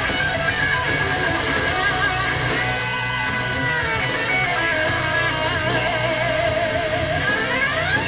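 Rock music with an electric lead guitar holding wavering vibrato notes and sliding up in pitch near the end, over a steady low end. It is played through DIY transmission-line speakers with Tang Band 4-inch full-range titanium drivers.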